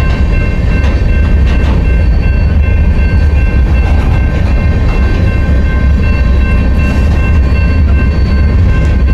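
Freight train rolling past: a loud, steady low rumble with a steady high-pitched squeal and a few faint clicks.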